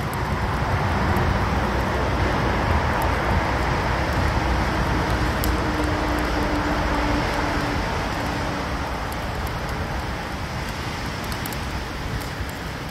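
Small softwood-twig campfire burning in a steel fire pit, with a few faint crackles, under a steady rushing wind noise that is heaviest in the low end and eases slightly in the second half.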